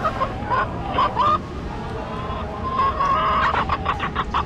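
Chicken-like clucking calls that slide up and down in pitch, turning into a quick run of short clucks about three and a half seconds in.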